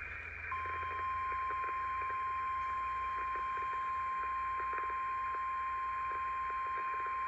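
NOAA Weather Radio warning alarm tone: a single steady 1050 Hz tone that starts about half a second in and holds unbroken, over radio receiver hiss. It signals that a warning broadcast is about to follow.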